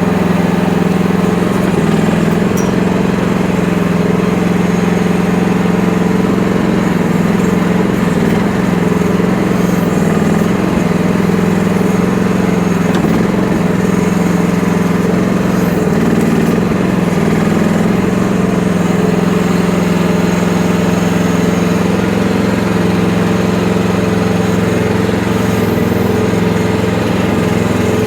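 FF12 mini excavator's small engine running steadily at an even speed.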